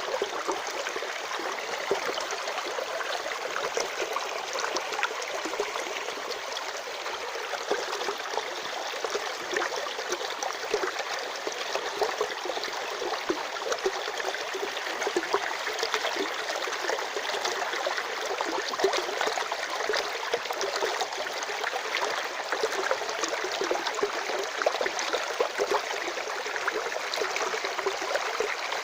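Natural running water flowing steadily: a continuous rush dotted with many small splashes.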